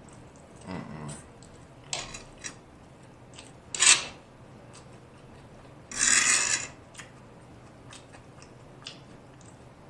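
Close-up eating sounds: chow mein noodles being chewed and a fork scraping and twirling in the food tray, with several short, noisy bursts, the loudest a sharp one about four seconds in and a longer one around six seconds in.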